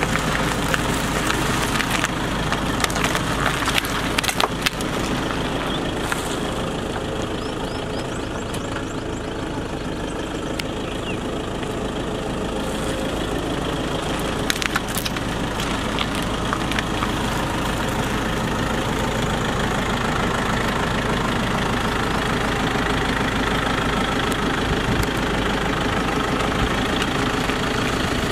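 Car engine idling as the car creeps over boxed chocolates and foil wrappers, with crackles and pops of cardboard and wrappers crushed under the tyre, most between about three and five seconds in and again at about fifteen seconds.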